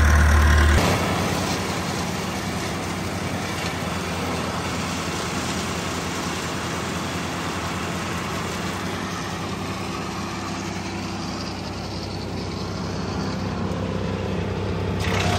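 An engine idling steadily. A louder low hum in the first second drops away suddenly, and the idle runs on evenly after it.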